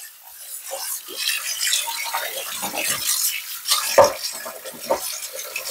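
Tap water running and splashing into a cast iron skillet in a sink as a hand swishes and rubs it out, with a few sharper knocks. The loudest knock comes about four seconds in.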